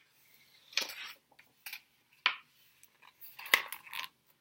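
A picture book being handled and opened to its first pages: a handful of short taps and rustles of the cover and paper.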